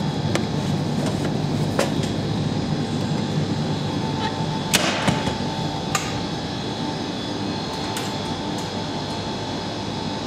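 Steady background hum with a run of sharp clicks and knocks as the heated food box is handled and lifted out of the vending machine's delivery door, the loudest just before five seconds in.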